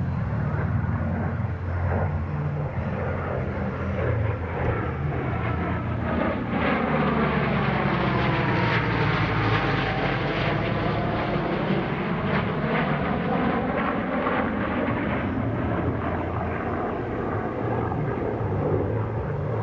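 An F/A-18F Super Hornet's jet engines and an FG-1D Corsair's radial piston engine flying past together in formation. The sound runs steadily, grows a little louder through the middle, and takes on a sweeping whoosh as the pair passes.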